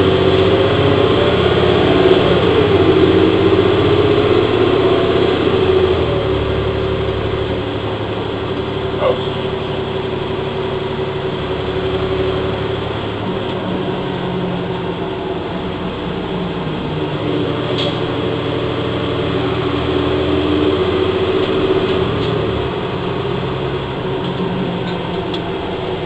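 Orion VII NG transit bus's Cummins ISL inline-six diesel and Allison B400R automatic transmission running while the bus drives, the engine note rising and dropping several times with changes in speed and gear.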